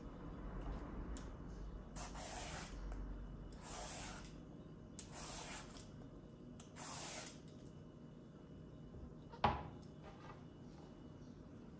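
Vegetable peeler scraping strips of skin off an aubergine: four scraping strokes, each under a second and about a second and a half apart, then a single sharp knock near the end.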